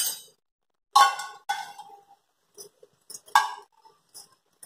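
Kitchen utensils clanking against a cooking pan: four sharp metallic knocks, two close together about a second in and another past the three-second mark, each ringing briefly.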